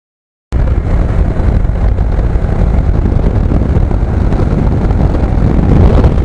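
A riding motorcycle, with wind buffeting the microphone over road and engine rumble; it cuts in suddenly out of silence about half a second in.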